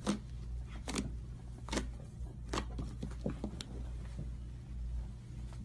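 Hands squeezing and working a large slime, giving a string of short, sticky pops and clicks, roughly one a second.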